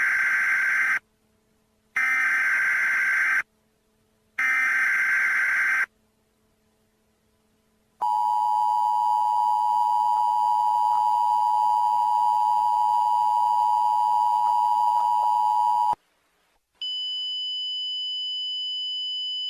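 Emergency Alert System tones. First come three short bursts of the screeching SAME header data, each about a second and a half long with a second's gap between them. Next, the steady two-tone attention signal is held for about eight seconds. After a brief break, a single buzzy steady tone starts near the end.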